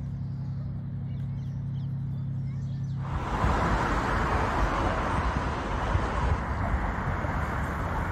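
Outdoor ambience: a steady low hum with a few faint bird chirps. About three seconds in it switches to a louder, gusty rushing noise with low rumbling, typical of wind buffeting the microphone.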